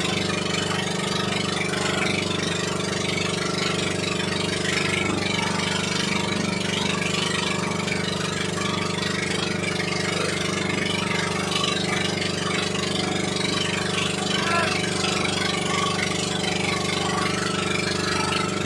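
Fishing boat's engine running at a steady speed, a constant low hum.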